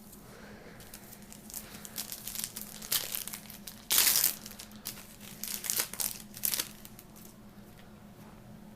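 Foil wrapper of a Yu-Gi-Oh booster pack crinkling and tearing as the pack is opened: irregular crackling rustles, the loudest burst about four seconds in, dying down after about seven seconds.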